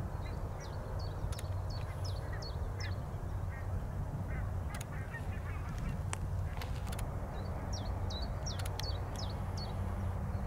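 Birds calling: two runs of short, high, hooked chirps, one near the start and another about two-thirds through, with some lower calls between them. Under them runs a steady low rumble, with a few sharp clicks.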